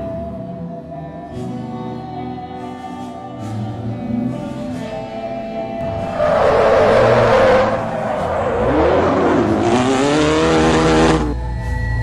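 Background music over racing video game sound effects: car engine noise and tyre screeching, with a loud burst of noise about six seconds in and another stretch with sliding pitches about ten seconds in.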